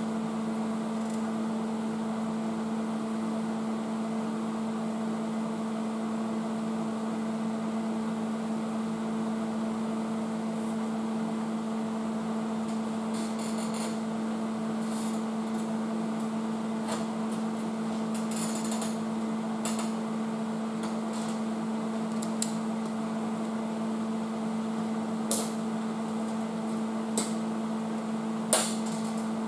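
Steady electrical hum from a running machine, with a few short ticks and brief crackles scattered through the second half.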